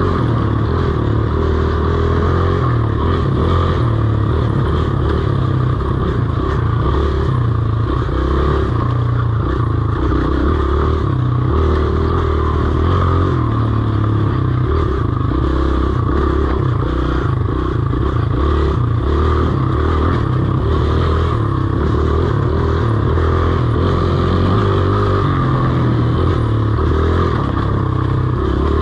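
Dirt bike engine running continuously while riding a trail, its pitch rising and falling with the throttle, heard close up from an on-board camera.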